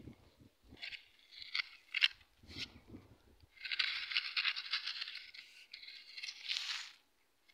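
Metal hoe blade scraping and dragging through loose, dry soil, pulling earth back over garlic cloves planted in a furrow. First a run of short scrapes with a few soft knocks as the blade bites the ground, then one longer continuous scrape from about four seconds in that stops shortly before the end.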